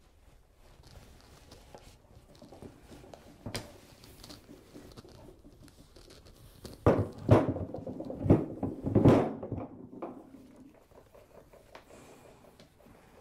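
Handling noises: light clicks and rustling, then a cluster of several loud knocks and scuffs about seven to ten seconds in.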